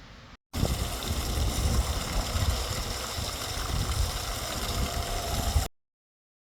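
Water rushing out of a flowing artesian well, a steady rushing noise with a heavy low rumble that starts and stops abruptly.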